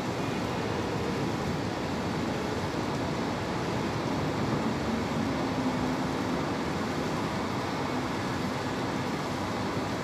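Steady rushing noise of a heavy rainstorm over the city, mixed with the low hum of road traffic below, without sharp breaks.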